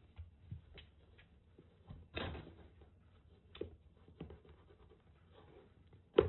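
Kittens playing close to the microphone: scattered soft paw thumps and fur rustling against it, with a sharp knock near the end.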